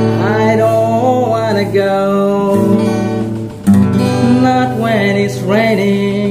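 A man singing, accompanied by a strummed acoustic guitar. The chords ring on under the voice, drop away briefly, and a hard strum starts the guitar again about three and a half seconds in.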